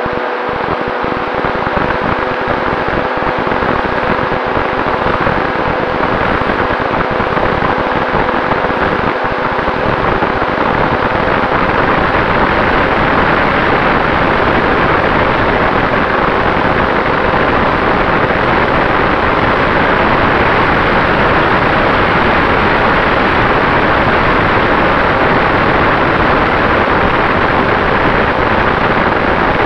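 Onboard-camera sound of an FPV drone in flight: a loud, even rush of wind and propeller noise with a faint steady motor hum. It grows louder over the first ten or so seconds, then holds steady.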